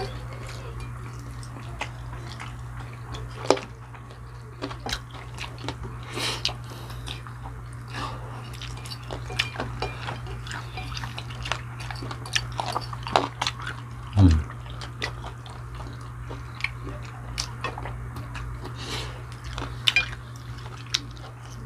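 Eating at a table: biting and chewing fried chicken, with scattered small clicks of cutlery against plates, over a steady low hum. A short, louder low sound comes about two-thirds of the way through.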